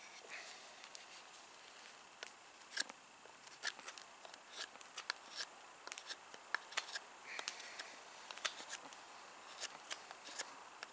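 Carving knife cutting into a wooden bowl blank: a faint, irregular series of short, crisp cuts and scrapes.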